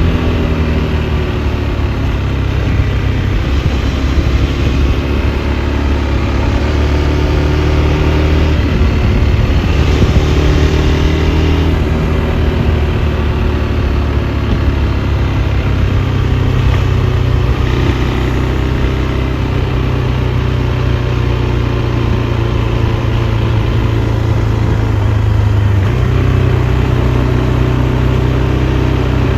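KTM 390 Adventure's single-cylinder engine running steadily while riding, its pitch rising and falling gently with the throttle.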